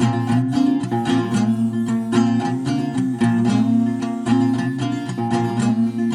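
Background music on plucked strings, guitar-like, with quick picked notes over a steady low drone.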